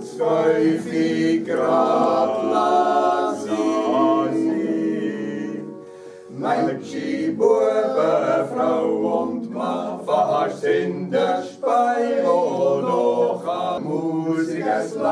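Five men singing a cappella in harmony. The singing drops away briefly about six seconds in, then resumes.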